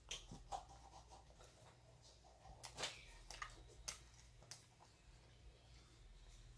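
Faint eating sounds from someone eating a fast-food meal: a handful of short mouth clicks and rustles, scattered through.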